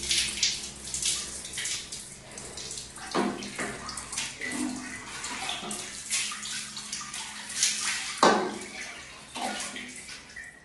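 Water poured from a plastic dipper over a person and splashing onto a tiled bathroom floor, in irregular splashes with two heavier pours about three and eight seconds in, alongside scooping from a plastic bucket.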